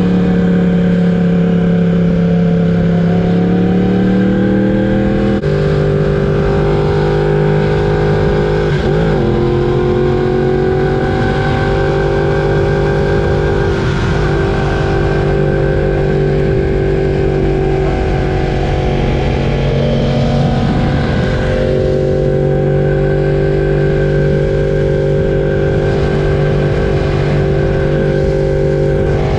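Yamaha R1's crossplane inline-four engine running under way. Its pitch sags and climbs over the first few seconds, drops abruptly with a gear change about five seconds in, then holds a steady, nearly even note.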